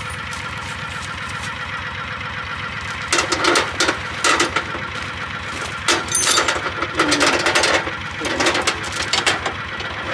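Utility vehicle's engine idling with a steady low pulse, while from about three seconds in come several bursts of metallic rattling and clanking.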